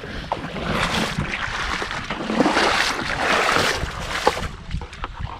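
Shallow seawater sloshing and splashing around the legs of someone wading out onto a sand beach. The splashing eases off near the end.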